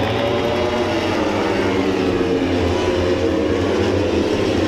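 A pack of MotoGP race bikes' four-cylinder engines running at high revs as they race past together just after the start. Several engine notes overlap and shift slightly in pitch.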